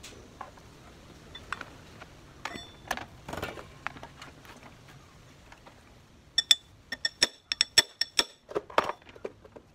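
A ratchet wrench clicking: a quick run of sharp, ringing metallic clicks for about two seconds in the second half, then a few duller knocks. Before that there are only scattered faint knocks of tools being handled.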